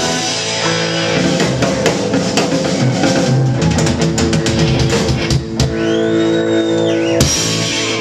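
Live rock band playing: electric guitar, bass guitar and drum kit. About five and a half seconds in, the drums drop out and a held chord rings with a high whine over it until the top end cuts off sharply about seven seconds in.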